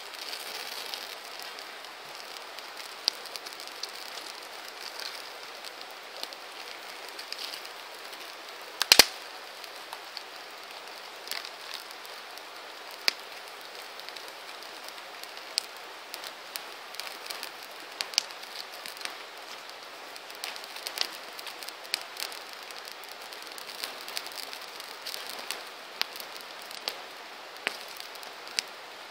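Wood campfire burning, crackling with irregular sharp pops over a steady hiss. A single loud double pop comes about nine seconds in.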